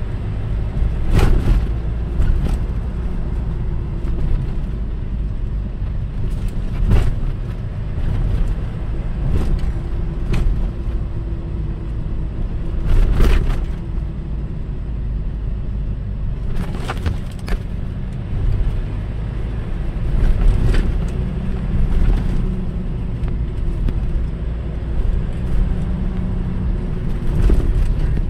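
Car driving, heard from inside the cabin: a steady low rumble of road and engine noise, with a faint hum running through it. About ten short, sharp knocks or clatters break in at irregular moments.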